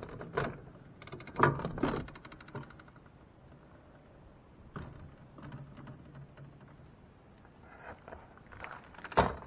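Clicks and rattles from a truck camper's entry door and its screen-door slide panel being handled, busiest in the first two seconds. After a quiet stretch there is one sharp knock near the end.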